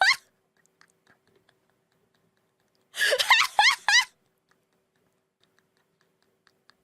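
A brief high-pitched vocal squeal, wavering in pitch, lasting about a second and starting about three seconds in; the rest is near silence.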